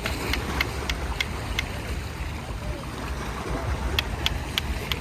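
Sharp ringing taps of a hand tool striking rock, about three a second, to chip and pry a whelk (sea snail) out of a crack. There is a run of taps at the start and another near the end, over a steady low rumble.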